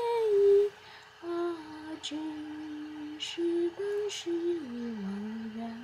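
A woman's voice singing a classical Chinese poem to a slow, plain melody in long held notes, with short breaks between them, sinking to a lower note near the end.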